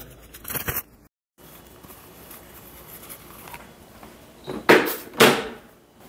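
A plastic bag rustles briefly near the start. After a cut, two loud short clatters come about half a second apart, as household items are handled at a kitchen counter.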